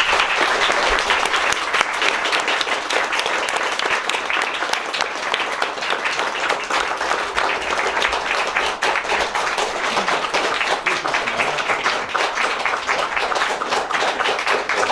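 Audience applauding, with many hands clapping densely.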